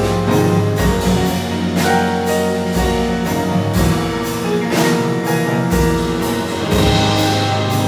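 Live trio of electric guitar, upright piano and drum kit playing together: sustained chords and low notes, with strokes on the drums and cymbals about once a second.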